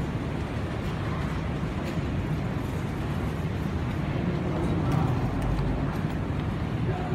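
Steady low rumble of airport terminal background noise, with a few faint clicks and a slight swell about five seconds in.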